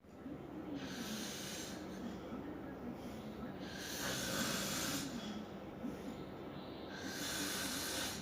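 A person snoring, with a low rattling snore and a hissing breath about every three seconds.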